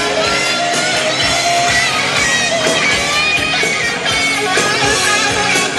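Guitar-driven music playing over an airshow public address system.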